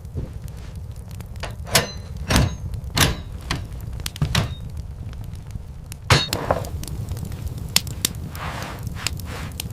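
Irregular sharp knocks and thuds over a steady low rumble, the loudest knock about six seconds in.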